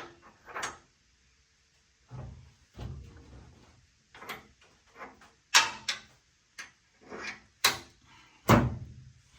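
Irregular sharp metal clinks and heavier clunks as spacers and a wheel are handled and slid onto a finish mower's wheel shaft, with the loudest knocks in the second half.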